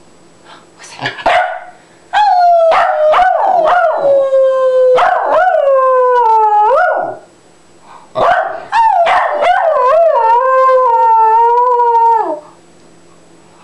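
Small dog howling, its 'singing': a few short yelps in the first two seconds, then two long howls of several seconds each that waver and fall in pitch at their ends.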